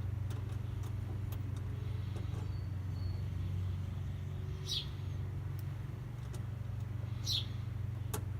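A steady low hum of a vehicle engine running in the background, with small scattered clicks of hand tools on the solenoid's terminals. A bird chirps twice, each a short falling note.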